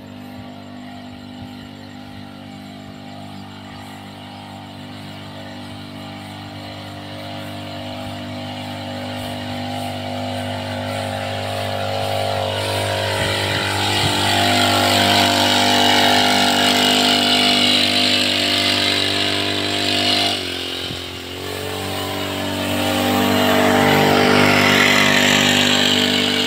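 Motorised backpack crop sprayer running steadily while spraying pesticide on cotton, with a hiss of spray on top. It grows much louder as it comes close, and its pitch dips briefly and recovers about twenty seconds in.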